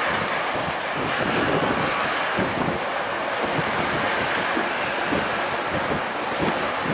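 Covered hopper cars of a Canadian Pacific freight train rolling past: a steady rumble with irregular wheel clatter, and wind on the microphone.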